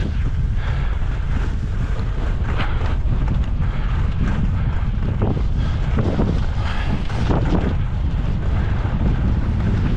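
Wind buffeting the microphone of a moving skier, a steady loud low rumble, with skis hissing and scraping over snow in uneven swells.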